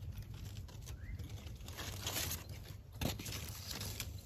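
Tomato plant leaves and stems rustling and crinkling as a hand moves through them close by, with the densest rustle about two seconds in and a sharp click near three seconds. A low steady rumble runs underneath.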